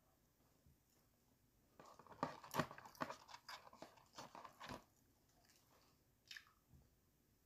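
Crispy fried chicken being bitten and chewed close to the microphone: a quick run of crunches for a few seconds, then one more crunch near the end.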